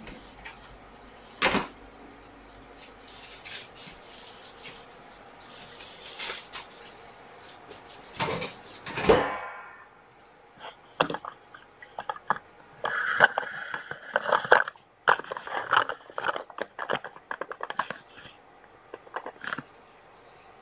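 Handling noises in a small room: a thump, then a clatter about eight seconds in as a plastic litter box is set down on the floor, followed by a busy run of clicks, knocks and rattles.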